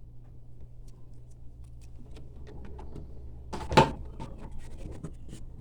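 A steady low hum with a run of small clicks and rustles, and one louder knock about three and a half seconds in.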